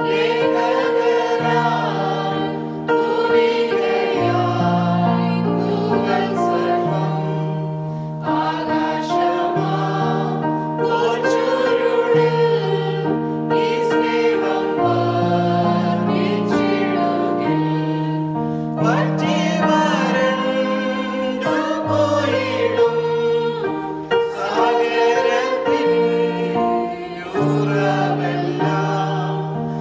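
A mixed group of children and adults singing a hymn together in chorus, over keyboard accompaniment that holds low notes changing in steps.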